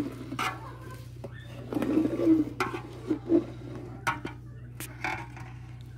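A long metal ladle scraping and clinking against the inside of a large aluminium pot while thick milk-and-rice payesh is stirred: a handful of separate scrapes and knocks over a steady low hum.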